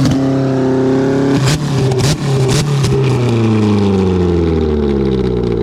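Car engine revving through a freshly fitted custom exhaust. Revs are held high at first, blipped sharply a few times about a second and a half in, then fall slowly through the last few seconds.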